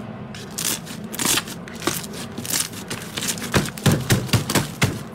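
Yellow slime being squeezed and pressed by hand: a run of wet crackles and clicks that builds, about three and a half seconds in, into louder pops at roughly three a second.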